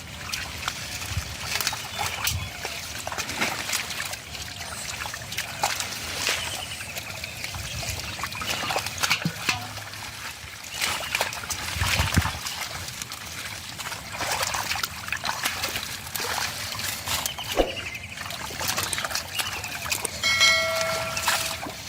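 Irregular splashing, sloshing and trickling of muddy river water as hands grope through it. About twenty seconds in, a short pitched call with several overtones.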